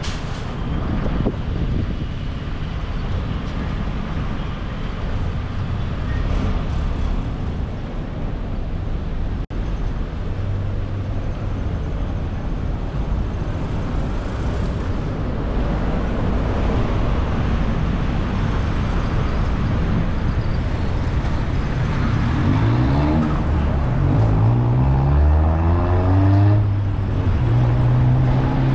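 Road and traffic noise from driving through city streets. Near the end a vehicle engine is heard rising in pitch several times, as if accelerating through gears.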